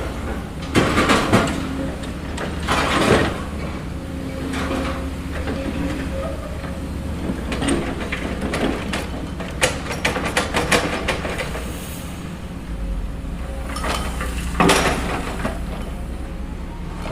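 The small electric motors and gearboxes of RC toy construction machines whir steadily. Several bursts of scraping and rattling, loudest about a second in, around three seconds and near the end, sound like dirt and gravel being dug and moved.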